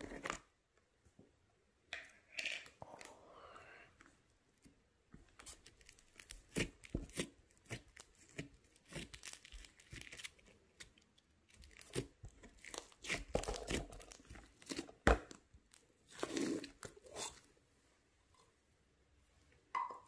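A round plastic slime tub being opened, then fingers poking and squeezing thick, soft slime inside it, making a run of sticky crackles and pops. The crackles are densest from about six to seventeen seconds in.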